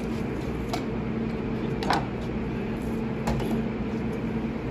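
Steady mechanical hum with an even low tone, and three light knocks from the knife and salmon on the cutting board as the fish is filleted, the sharpest just before two seconds in.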